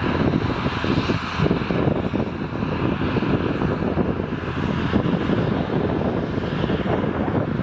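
Airbus A321 airliner on final approach with landing gear down, its jet engines running at approach power in a steady, even rumble.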